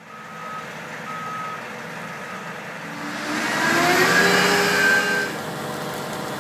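Work truck's reversing alarm beeping three times, about once a second, over the truck's engine running. Around the middle a louder rush of noise with rising tones takes over for about two seconds.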